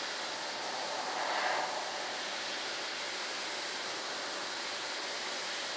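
Steady, even background hiss (room tone), with no distinct event in it.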